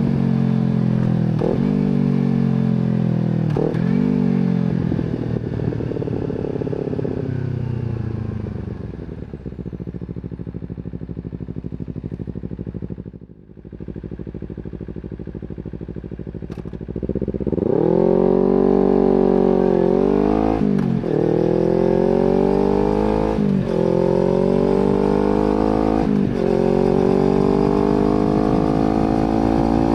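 Kawasaki Z250 motorcycle with an aftermarket slip-on exhaust on the move. It slows with falling revs and a couple of quick rev spikes, then runs at low revs for several seconds. About two-thirds of the way in it accelerates hard and shifts up about every three seconds, the revs climbing again after each shift.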